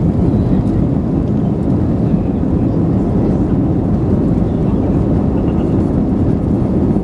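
Steady, loud rumble inside the cabin of an Airbus A321 with CFM56 engines: engine and airframe noise heard from a passenger seat.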